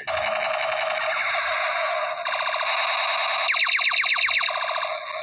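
Electronic sound effects from a battery-powered toy pistol's small speaker, with its trigger held: a steady, warbling siren-like tone. About three and a half seconds in, a run of quick repeating laser-like sweeps is added.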